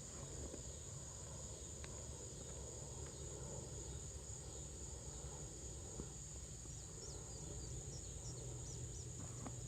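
A steady high-pitched insect drone, with hands rustling and crumbling through bucket soil and a few short bird chirps near the end.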